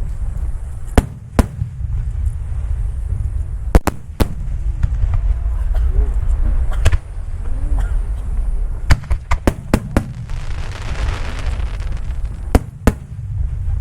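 Aerial fireworks shells bursting: about a dozen sharp bangs at irregular intervals, several in quick succession around nine to ten seconds in, over a continuous low rumble. A burst of hiss rises about ten seconds in.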